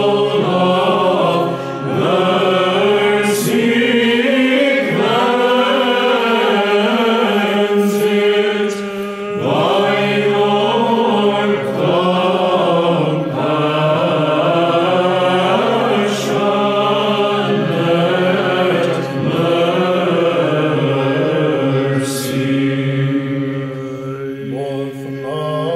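Choir of mixed men's and women's voices chanting Byzantine chant: the melody moves over a steady held drone (the ison) in lower voices, which changes pitch a few times.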